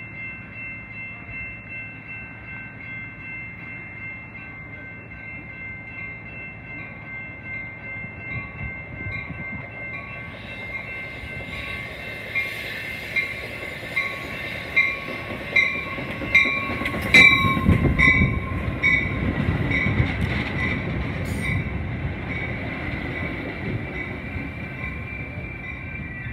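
Metra bilevel commuter train arriving and rolling past close by as it slows for the platform, with a heavy rumble from about 17 s on. A bell rings steadily about once every 0.8 s and grows louder as the train approaches.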